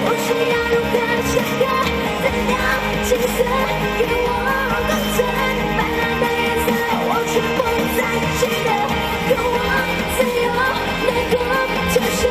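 A female singer sings a Mandarin pop song into a handheld microphone over pop accompaniment with a steady beat.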